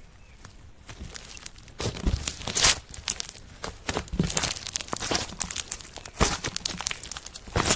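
Slime being squeezed and stretched by hand, with irregular sticky crackles and pops. It starts quietly and grows louder about two seconds in.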